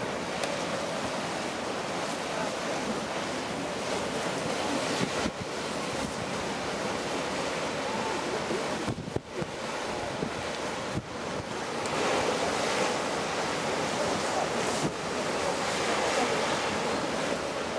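Steady wind buffeting the microphone over the wash of water, with the bow wave of a two-masted schooner splashing along its hull as it passes close by.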